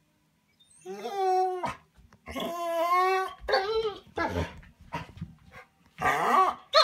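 Bernese Mountain Dog "talking": a series of drawn-out, pitched whining moans that rise and fall in pitch, starting about a second in. The dog is whining at the door, wanting to be let out.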